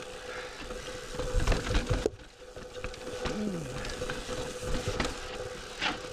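Mountain bike riding down rocky singletrack: tyres crunching and bumping over rock, with knocks and rattles from the bike. A cluster of louder knocks comes around one to two seconds in, followed by a brief quieter moment.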